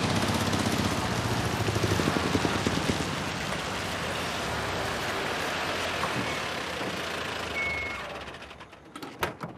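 A car's engine and tyres running on a dirt road as it drives up and comes to a stop. The sound fades out about eight seconds in, followed by a few short knocks near the end.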